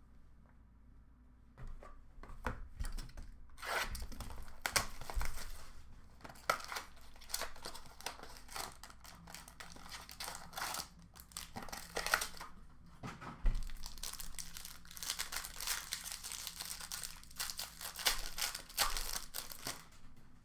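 Trading card packaging being torn open and crinkled by hand: irregular rips and crackles starting about two seconds in and going on in uneven spurts.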